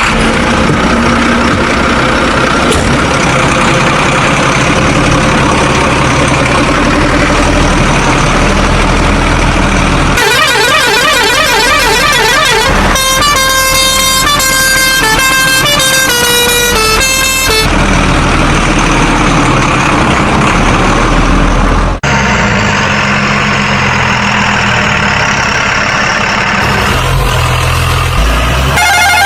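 Truck engine and horn sound effects: engines running, then a warbling siren-like passage followed by a tune of stepped horn tones in the middle. After an abrupt change about two-thirds in comes more engine sound with steady low horn notes, and a brief warble near the end.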